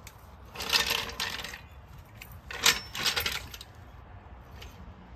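Metal car jack being handled and set in place under the car: two spells of metallic clinking and rattling, the second with a sharp clank about two and a half seconds in.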